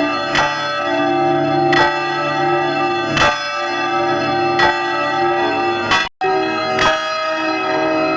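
Church bell tolling, struck about every second and a half, each stroke ringing on under the next. About six seconds in, the sound cuts out completely for a split second and then resumes.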